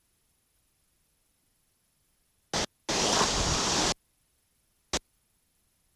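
Dead silence broken about two and a half seconds in by a brief blip and then about a second of loud rushing waterfall water, cut off abruptly, with a single short click near the end.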